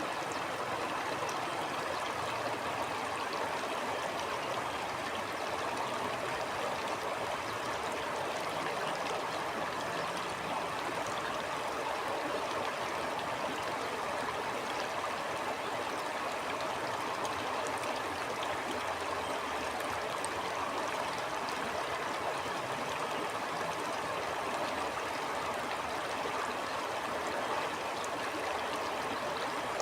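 Stream flowing steadily, an even rush of running water.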